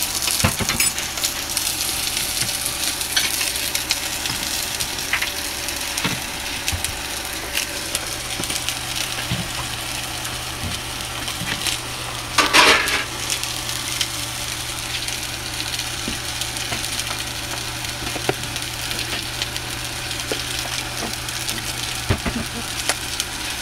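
Sliced onions, mushrooms and red pepper sizzling as they sauté in a stainless steel saucepan, with scattered short clicks of a utensil on the pan. About halfway through, one brief louder clatter stands out.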